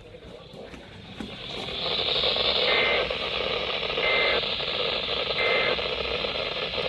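Emergency Alert System end-of-message data tones: three short, buzzy digital bursts about a second apart, marking the end of the alert. Under them is a steady radio hiss that swells up about a second and a half in.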